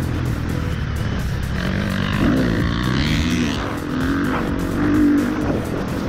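KTM 350 SX-F single-cylinder four-stroke motocross engine, heard from the rider's helmet. Its note falls and rises several times as the rider comes off the throttle into a corner and accelerates out again.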